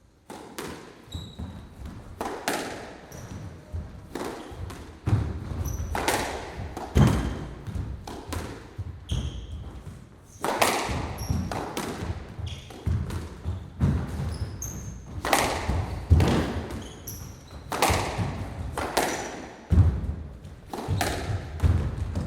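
Squash rally: the ball is struck by rackets and smacks off the court walls and floor in quick, irregular succession, each hit echoing around the court. Short high squeaks from players' shoes on the court floor come between the hits.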